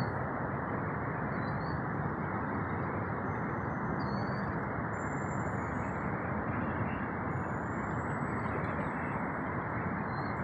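Boeing 757-200 jet engines heard at a distance as a steady, even rumble while the airliner flies overhead.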